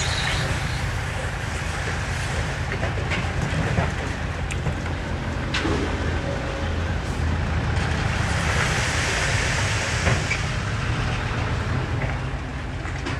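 Diesel engines of heavy earthmoving machinery running steadily under work, with a few sharp metallic knocks and a passing hiss.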